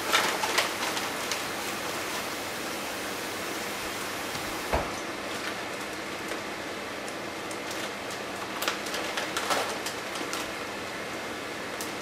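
A plastic bag of pancake mix crinkling and rustling as it is handled and closed, over a steady hiss. There is a single thump about five seconds in.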